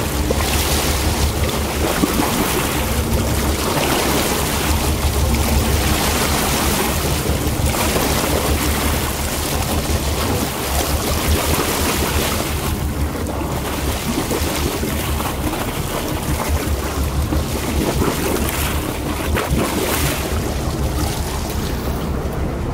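Wind buffeting the microphone over open sea, a steady low rumble with gusty swells of hiss every few seconds, and the wash of water around a boat.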